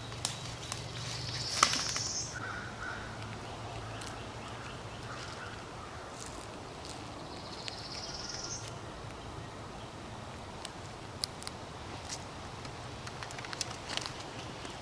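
Quiet outdoor ambience over a faint low hum: scattered small clicks and cracks, and two high rising bird calls, one about two seconds in and one about eight seconds in.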